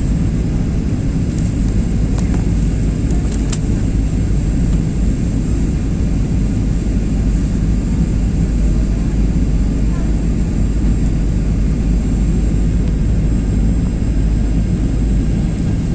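Airplane noise: a steady, loud, low rumble with a thin high whine above it, holding level without rising or fading.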